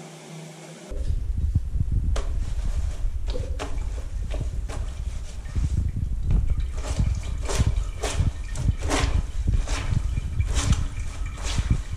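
Wet clothes being scrubbed by hand with a bar of soap on a wet floor: a quick run of rubbing, slapping and splashing noises, busier in the second half, over a heavy low rumble.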